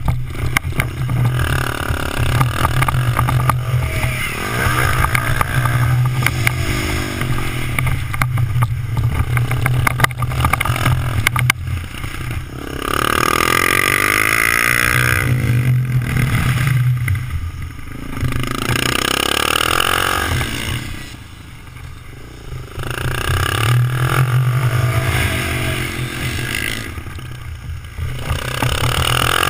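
Mini motorcycle's engine heard from a camera on the bike, revving up and falling back again and again as it accelerates and slows. The engine drops off for a couple of seconds about two-thirds of the way through.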